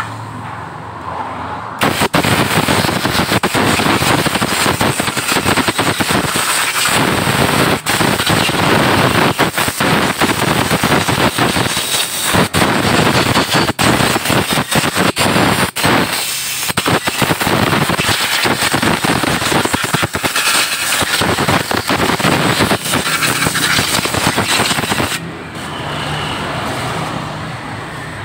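Compressed-air blow gun blasting a freshly washed motorcycle cylinder head: a loud rushing hiss that starts about two seconds in, is broken by many brief gaps as the trigger is let off and squeezed again, and stops a few seconds before the end.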